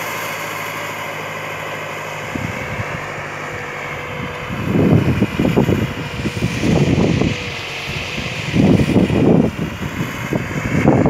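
Backhoe loader's diesel engine running steadily. From about halfway, several loud, irregular rumbling bursts come in over it.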